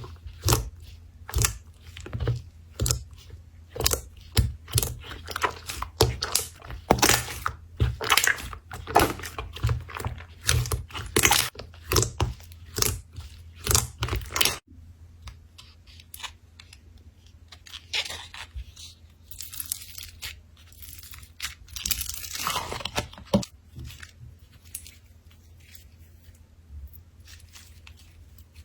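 Slime handled by hands, with dense crackling, popping and clicking for about the first half. It then changes abruptly to quieter, sparser squishes and crackles.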